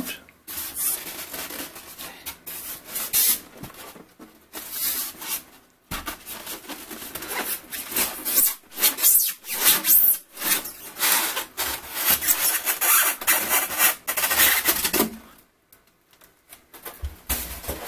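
White foam packing rubbing and scraping against a small aluminium-cased 3D printer as the printer is worked free of its foam insert. It comes in irregular stretches with short pauses, and goes quiet near the end.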